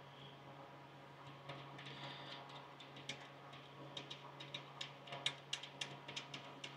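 Faint small metallic clicks and ticks of a metal plug being turned by hand into a port on an aircraft bleed pressure regulating valve, coming thicker from about four seconds in, over a steady low hum.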